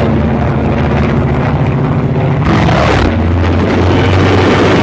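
Piston aircraft engines droning steadily as two fighters manoeuvre overhead, with a noisy rush over the low engine note, which shifts about halfway through.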